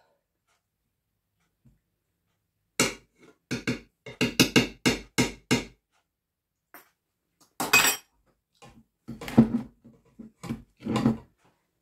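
Metal spoon knocking and scraping in a metal cooking pot while shredded marinated cabbage is spooned out into a glass jar. A quick run of about a dozen knocks is followed by a louder knock and then a couple of duller thumps near the end.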